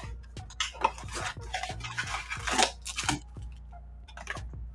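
Foil-wrapped trading card packs and a cardboard blaster box being handled: a run of crinkles, taps and scrapes.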